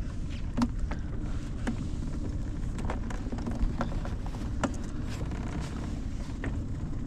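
Steady low rumble aboard a small fishing boat at sea, with scattered light clicks and knocks.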